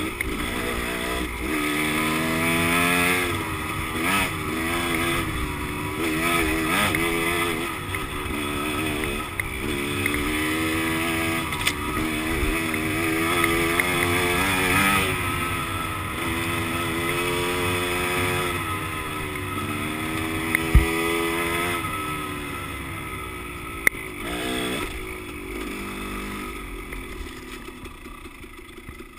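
Dirt bike engine running while riding, its revs rising and falling again and again through throttle changes and gear shifts, with wind and road noise over it. A couple of sharp knocks in the second half, and the engine grows quieter near the end.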